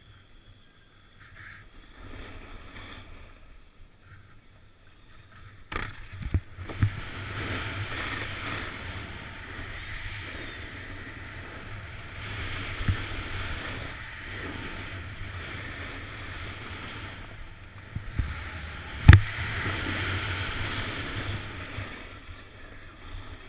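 Snowboard sliding and scraping over packed snow, a steady hiss that grows louder about six seconds in. A few sharp knocks from the board, the loudest about nineteen seconds in.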